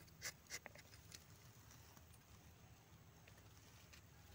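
A rubber-tapping knife shaving bark along the tapping cut of a rubber tree: a few short scraping strokes in the first second, then near silence.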